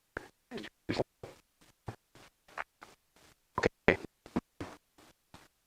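A person's voice broken into short, choppy fragments with dropouts between them, typical of badly garbled lecture audio.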